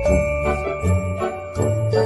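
A polyphonic phone ringtone playing: a synthesized melody of held notes stepping in pitch over a bass line, with a steady beat.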